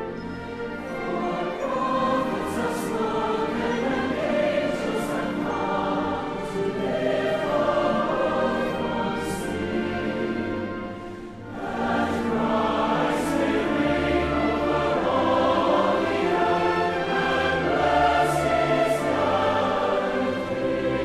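Background music: a choir singing a slow piece, with a brief dip about halfway through before the voices swell again.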